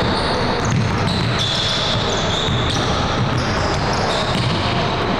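Basketball dribbling on a hardwood gym floor during a game, with players' voices in the background.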